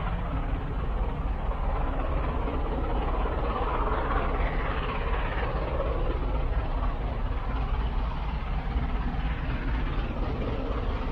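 SR Light Pacific 4-6-2 steam locomotive 34067 Tangmere: a steady low rumble with a hiss of steam, swelling briefly about four seconds in.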